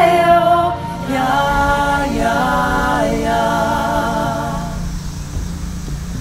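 Unaccompanied voices singing a slow song in long held notes that change pitch in steps, then fade out about five seconds in.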